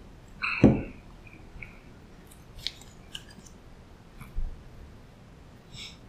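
A metal tumbler set down on a table with a ringing clunk, followed by small crinkles and clicks of a paper wrapper as a pancake is lifted out of a bowl, a soft thump, and near the end a brief soft tearing as the pancake is pulled apart by hand.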